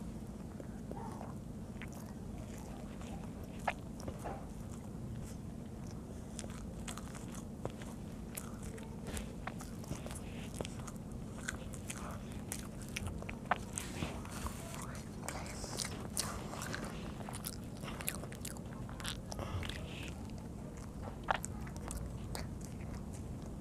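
A boy eating soft rice-flour pitha by hand: chewing with many small wet smacks and clicks of the mouth, over a steady low hum.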